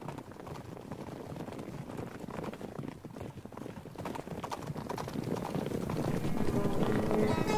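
Opening of a music track: a dense, rapid clatter of percussive clicks building steadily in loudness, with sustained pitched notes coming in near the end.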